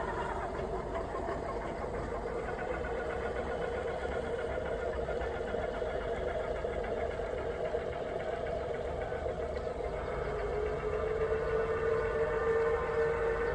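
Scale model steam tug under way, giving off a steady drone with several held pitches that grows louder about ten seconds in.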